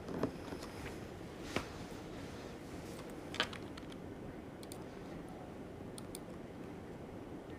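Faint room hiss with a handful of sharp clicks over the first three and a half seconds, the loudest about three and a half seconds in, then a few fainter high ticks.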